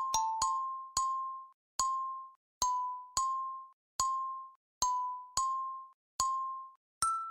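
Kalimba playing a slow melody one plucked note at a time, about eleven notes, each ringing and fading before the next. Most are the same high note repeated, with a higher note near the end.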